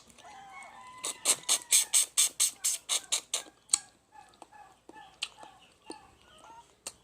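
Chickens clucking, with a fast run of about a dozen sharp, loud crackling strokes about a second in, lasting roughly two and a half seconds.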